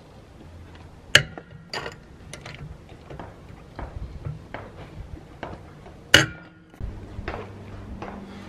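Metallic clinks and knocks of a socket wrench working the wheel's lug nuts, with two loud, sharp, ringing clanks, about a second in and about six seconds in. Near the end a steady low hum takes over.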